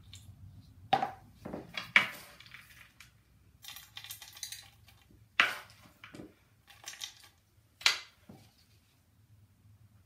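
Handfuls of seeds, nuts and dried fruit scooped from a wooden bowl and dropped into a metal heart-shaped mold tray: a string of short clinks and rustles, about eight in all, with a faint steady hum behind.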